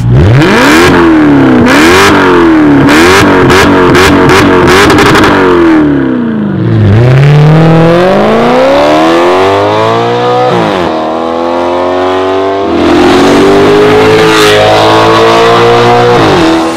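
Maserati GranTurismo V8 through a valved catback and catless downpipes: quick rev blips with sharp cracks between them for the first five seconds or so. It then pulls away at full throttle, the pitch climbing in a long rise, dropping at an upshift near eleven seconds and climbing again.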